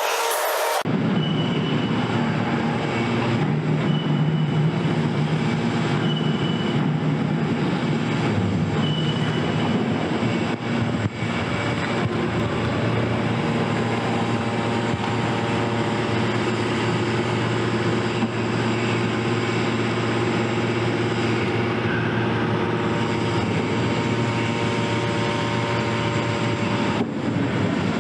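Hydraulic car baler working: a steady drone from its hydraulic power unit, with short high squeals of sheet metal as the car shell is pressed. The drone drops in pitch about a third of the way through, and the sound changes abruptly about a second in and again near the end.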